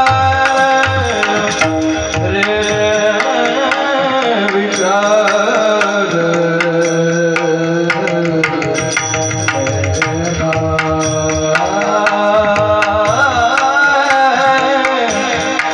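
Marathi kirtan devotional singing: a male voice sings a drawn-out, ornamented melody over steady held instrumental tones, with a hand drum keeping the rhythm.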